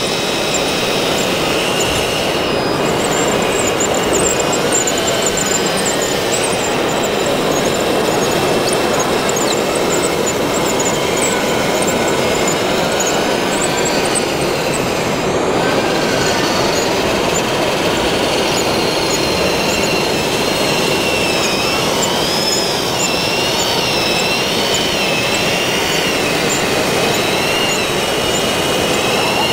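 Small electric motors and hydraulic pump of a 1/14-scale RC track loader and excavator whining as they work, the pitch rising and falling repeatedly in the second half, over steady dense noise.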